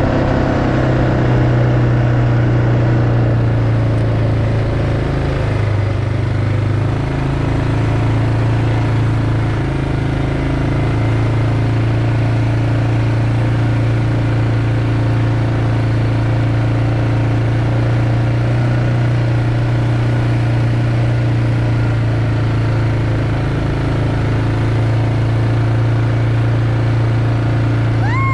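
ATV engine running steadily while the quad rides along at a constant cruising pace, a continuous low drone with little change in speed.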